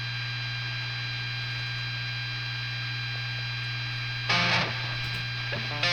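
Steady electrical mains hum and buzz from an idling electric guitar amplifier rig, with a brief louder guitar sound about four seconds in.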